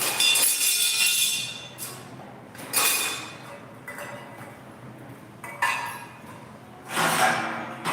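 Kitchen utensils clinking and clattering: about four short clatters with a brief ring, spaced a couple of seconds apart.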